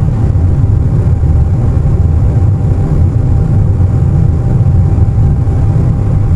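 Airliner cabin noise at cruise: a steady, unbroken low rumble with a faint steady tone above it.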